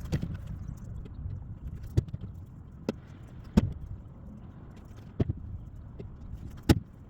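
Sharp, irregular knocks of pieces of ash firewood striking wood, six or so spread over several seconds, over a low rumble.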